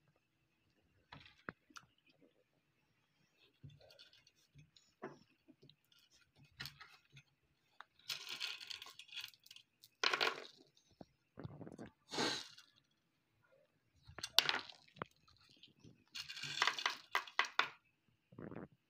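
Glass marbles clinking and rattling against each other and the tabletop as they are picked up and handled, in irregular bursts with quiet gaps between.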